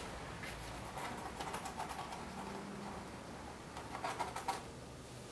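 Wooden skewer scratching over a painted layer of acrylic and water-based cold wax medium: quick bursts of light scratching, about a second in and again around four seconds.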